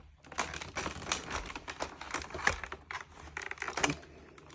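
Plastic clicking, knocking and rustling as a Shark Powered Lift-Away vacuum is handled by hand, stopping about four seconds in.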